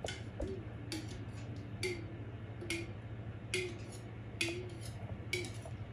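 Soft, regular ticking, about one tick every 0.85 seconds, each with a brief low tone, over a steady low hum.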